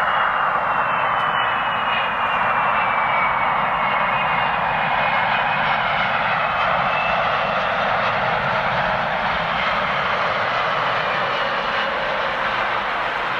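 Korean Air Airbus A330-300 twin-jet engines running loud and steady as the airliner passes, with a thin fan whine slowly falling in pitch.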